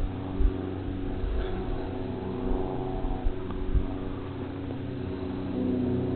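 An engine running steadily at an even pitch, with a few low thumps on the microphone.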